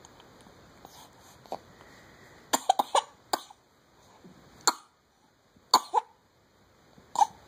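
A feverish baby coughing: a quick run of small coughs about two and a half seconds in, then single short coughs every second or so.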